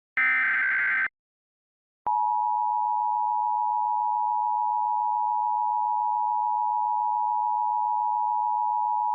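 The last of three Emergency Alert System SAME header data bursts, a short buzzy digital screech, then about a second of silence. Then the EAS attention signal starts: a steady two-tone 853 and 960 Hz chord, which announces that an emergency alert message follows.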